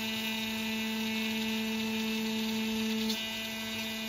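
Makera Carvera Air desktop CNC milling a slot in aluminum plate with a single-flute carbide end mill, its spindle at 12,000 RPM giving a steady whine. The tone shifts slightly about three seconds in.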